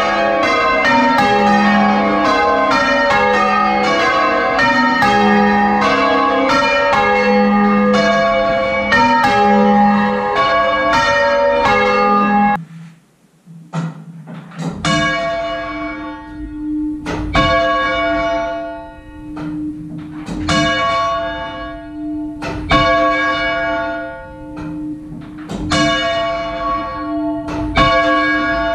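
Six church bells ringing changes, heard up close in the bell chamber, with strikes overlapping densely. After a short break, a single bell, the third, is rung on its own, striking every two to three seconds with a steady hum between strokes; it is being checked because it makes a weird noise when ringing.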